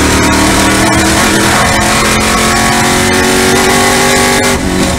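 TA2 race car's V8 heard from inside the cockpit at full throttle, pulling up through the revs from about 4,400 to about 5,900 rpm with the pitch climbing steadily. The note breaks off and changes near the end.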